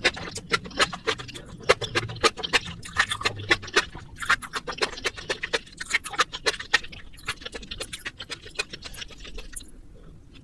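Close-miked wet chewing of spicy stir-fried instant noodles: a rapid run of sticky mouth clicks that thins out near the end.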